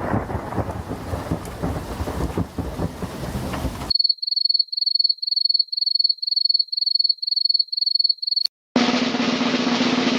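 Three sound effects in a row. First a dense rumbling noise, then a high electronic beep repeating about three times a second for about four seconds, then a brief cut and a new noisy effect with a steady low hum.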